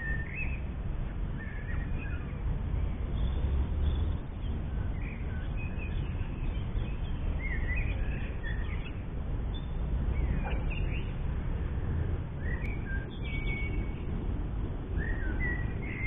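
Small birds singing and chirping in short, scattered calls, over a steady low rumble.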